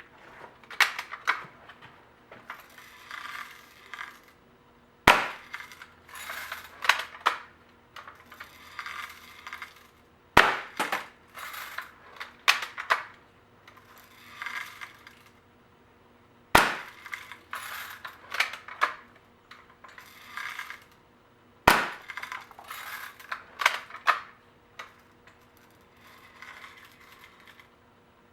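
A 1950s Daisy Red Ryder lever-action BB gun fired four times, roughly five to six seconds apart. Between the sharp shots come the scraping and clicking of the lever being worked to cock the spring.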